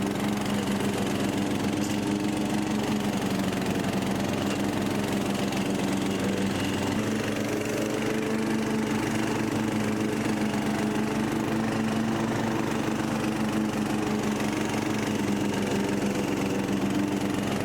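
Freshly rebuilt Briggs & Stratton 17.5 HP lawn mower engine running steadily at a constant speed.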